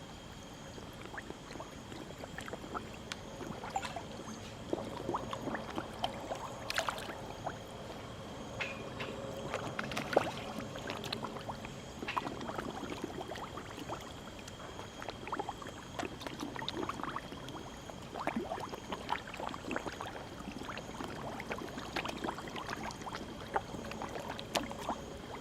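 Many koi splashing at the water surface as they take feed: a dense, irregular patter of small splashes and smacks.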